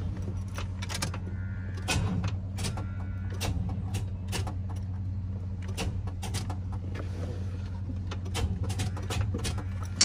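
Irregular sharp clicks, about one or two a second, from a 1991 Chevy pickup's starter solenoid as the key is turned. The starter does not crank: the battery is too weak on thin jumper cables. A steady low hum runs underneath.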